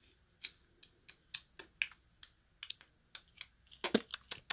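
Light clicks and crinkles of small plastic toy packaging being handled and opened by fingers, irregular at first and coming faster near the end.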